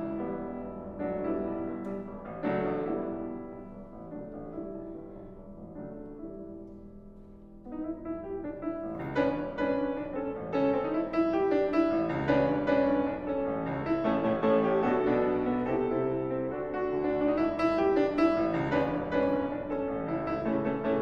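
Steinway grand piano played solo: soft held chords that die away, then about eight seconds in the playing grows louder and busier.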